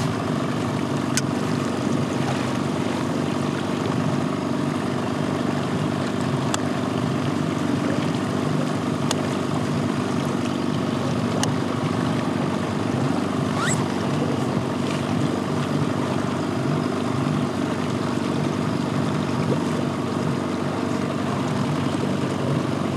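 Small outboard motor running steadily, pushing an inflatable boat along the river.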